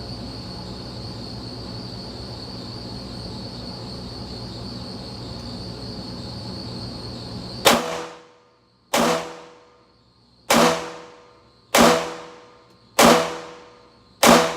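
Taurus TX22 .22 LR pistol firing CCI Stinger rounds: six sharp shots, about one every 1.3 seconds, starting about halfway through. Before the first shot there is a steady background hiss with a thin, high, steady whine.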